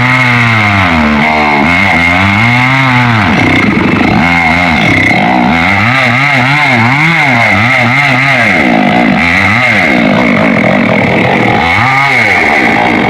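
Chainsaw cutting into tamarind wood, its engine pitch repeatedly dropping under load and climbing back as the saw bogs and recovers, about once a second. It runs loudly throughout.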